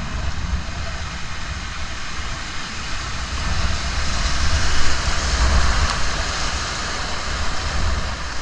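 Rushing river water, a steady hiss that swells about halfway through, over a low rumble on the microphone.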